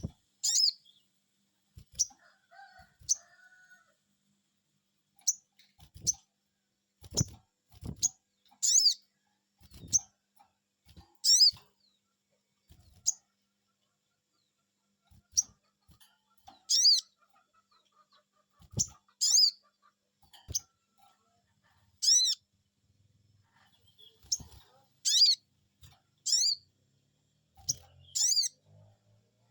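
Sogon bird calling 'cuiit cuiit': short, high chirps repeated at irregular intervals, some single and some doubled, each dropping in pitch. It is a lure call of the kind played to make other sogon birds answer.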